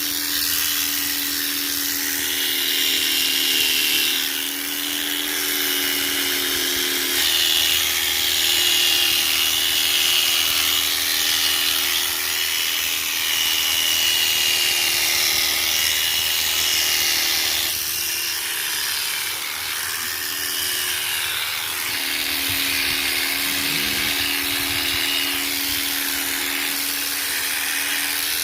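Electric sheep-shearing clipper running continuously, a steady motor hum with a high whine on top that shifts slightly in pitch a few times.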